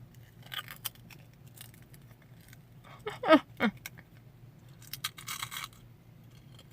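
Munchos potato crisps crunching and crinkling as they are eaten and handled, in short noisy bursts about half a second in and again around five seconds in. About three seconds in, a brief loud vocal sound drops quickly in pitch, twice.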